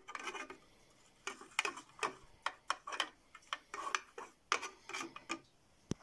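Toothbrush bristles scrubbing and swishing against the bottom of a small plastic tub as a soapy mix of bleach, washing-up liquid and water is stirred: a run of short rubbing strokes, a few a second, after a brief pause near the start.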